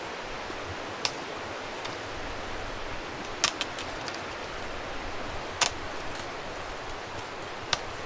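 Steady rushing outdoor noise with a few sharp clicks scattered through it, roughly every two seconds, two of them close together in the middle.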